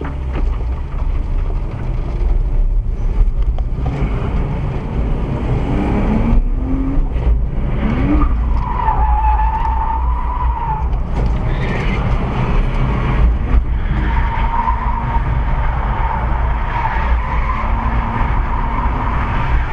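Cars drifting, heard from inside a following car: a steady low engine and road rumble throughout, engine revs rising just before eight seconds in, then tyres squealing for a couple of seconds and again for several seconds near the end.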